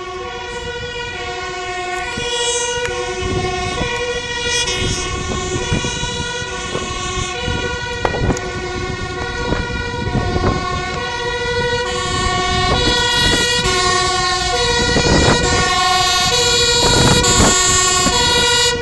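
Emergency vehicle's two-tone siren, switching steadily back and forth between a high and a low pitch and growing louder as it approaches.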